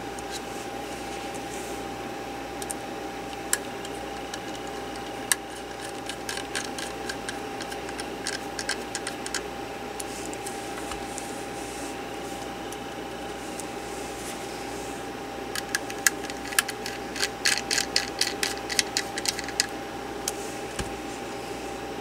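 Small sharp clicks and ticks of a precision screwdriver and its bits being handled while tiny mounting screws are fitted, scattered at first and then coming thick and fast for a few seconds past the middle, over a steady hum with a constant faint tone.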